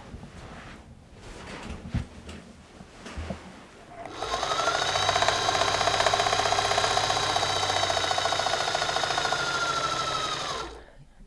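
Electric sewing machine stitching fast and steadily through sequined fabric; it starts about four seconds in and stops abruptly near the end. Before it, soft rustling with a few light thumps.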